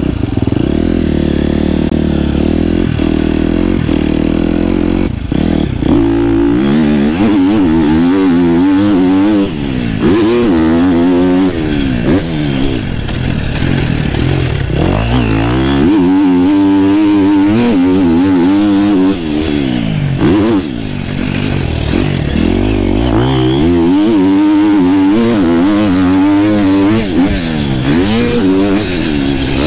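Onboard sound of a KTM motocross bike's engine being ridden hard around a dirt track. It runs at a steady low note for the first few seconds, then its pitch repeatedly climbs under throttle and drops on gear changes and off-throttle moments.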